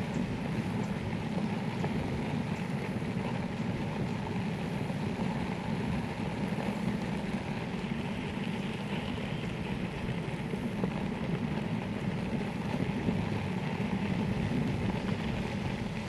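Electric longboard's wheels rolling steadily over a gravel trail: a low, even rumble.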